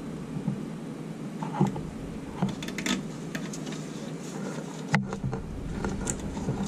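Wiring harness being handled and fitted into place: a few light, scattered clicks and rubs of plastic loom and connector against metal, over a steady low background.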